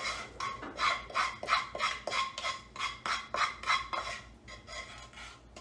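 A utensil scraping around a saucepan as thick brownie batter is stirred, in quick strokes about three a second that grow fainter near the end.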